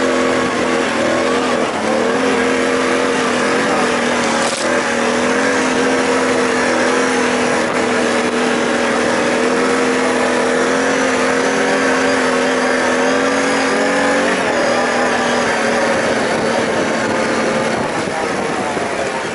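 Can-Am ATV engine running steadily under way on a trail, its droning note dropping lower about fourteen seconds in as the throttle eases. A brief knock sounds about four and a half seconds in.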